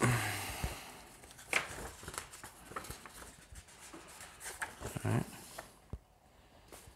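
Paper pages of a hardcover book being turned by hand: rustling with a few soft page flaps, dying away about six seconds in.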